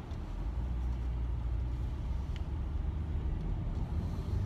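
Steady low rumble of a car's engine and tyres heard from inside the cabin of the moving car, with one faint click about halfway through.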